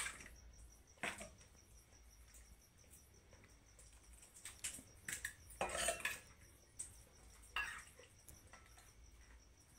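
A metal ladle clinking and knocking against a kadhai and small steel bowls as chicken curry is ladled out to serve, in scattered short strokes with a quick cluster about halfway through.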